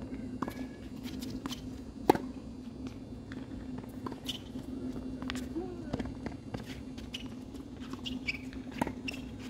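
Scattered sharp knocks of tennis balls on the hard court and against a racket between points, the loudest about two seconds in, over a steady low hum.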